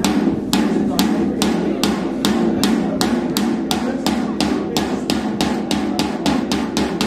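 Football supporters beating out a steady rhythm on the sidelines, about three to four sharp beats a second, over a crowd's voices.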